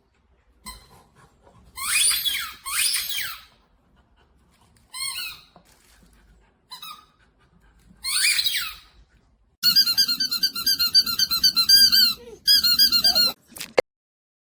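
Squeaker in a dog chew toy being squeezed: a few separate squeaks, then a quick run of many squeaks for about four seconds near the end.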